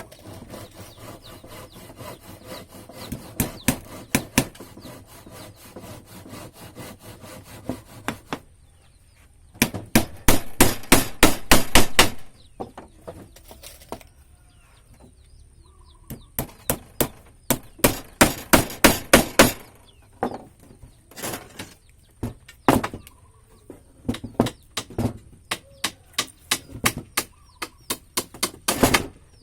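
Hammer blows on wood, in runs of rapid, evenly spaced strikes with pauses and scattered single knocks in between.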